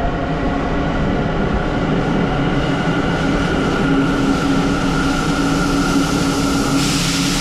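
Subway train pulling into the platform: a steady loud rumble with the electric motors' tonal hum and whine. Near the end a hiss rises in the high end.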